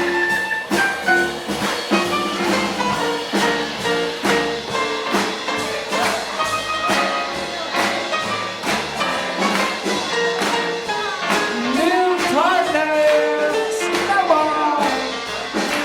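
Swing jazz band playing an instrumental passage, brass to the fore over a steady swing beat, with bending, sliding horn phrases in the last few seconds.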